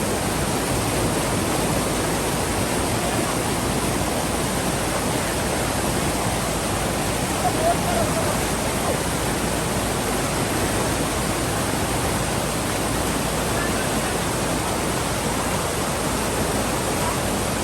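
Waterfall and rocky stream in heavy flow, a steady, even rush of water.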